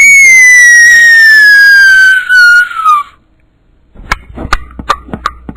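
Mouth-made sound effects into a microphone: a loud high-pitched tone glides steadily downward for about three seconds, like something falling or diving. After a short pause comes a quick run of sharp clicks, about five a second.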